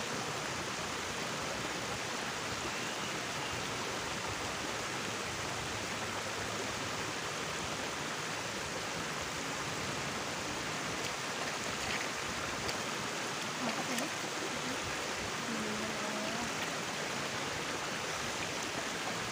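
River water flowing steadily, an even hiss of running water.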